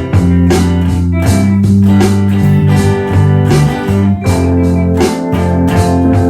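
Guitar-led band music with a bluesy feel, bass and a steady drum beat.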